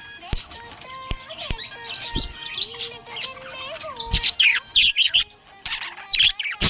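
Budgerigar chirping and warbling in quick, busy bursts of high chirps, with a soft background melody running beneath.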